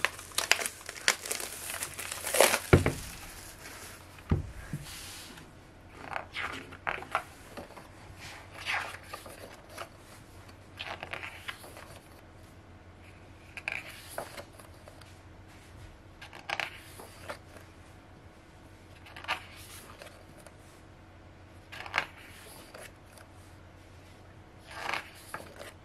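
Pages of a photo book being turned one by one, a short paper swish every two to three seconds. Louder paper handling and crinkling come first, in the opening few seconds.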